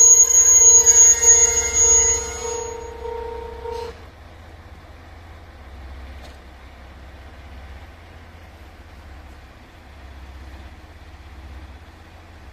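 A level crossing warning bell ringing in a repeating pattern, cutting off about four seconds in. Then the low steady rumble of idling diesel railcars.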